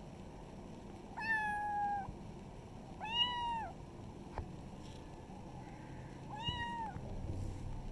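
Kitten meowing three times, short calls a couple of seconds apart, the first slightly falling and the other two rising and falling. A single sharp click between the second and third meow.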